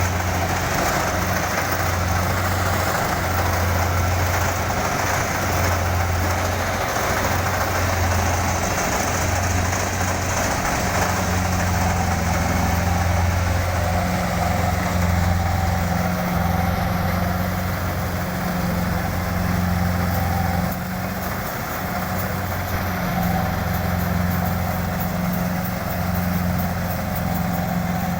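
Kubota DC-70 combine harvester's diesel engine running steadily with a strong low hum and a broad mechanical noise. It gets slightly quieter about 21 seconds in.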